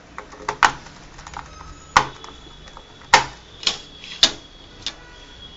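Irregular sharp clicks and taps, about seven in all, spaced unevenly: small screws, a screwdriver and a laptop's plastic bottom case being handled on a table while the base screws are refitted.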